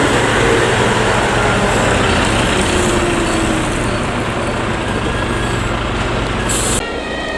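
A heavy fire engine (HTLF rescue tanker) driving past close by: a loud rush of engine and tyres with a steady low hum, its pitch dropping slightly as it goes by. It cuts off suddenly near the end.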